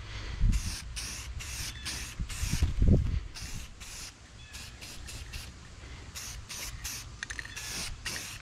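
Aerosol spray can of clear coat being sprayed in many short hissing bursts, about two a second, over a low rumble, with two louder low thumps about half a second and three seconds in.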